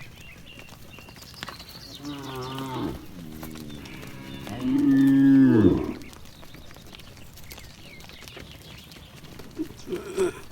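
Cattle mooing: a call about two seconds in, a quieter one straight after, then a louder, longer moo that drops in pitch as it ends. A few short, fainter calls near the end.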